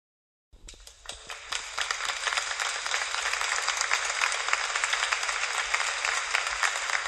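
Audience applause from many people clapping. It starts after a brief silence about half a second in, builds quickly, and then holds steady.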